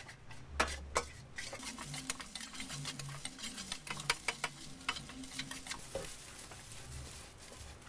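Metal spatula scraping and clinking against a stainless steel wok as fried rice is stirred and tossed, in quick irregular strokes, over a light sizzle of the rice frying.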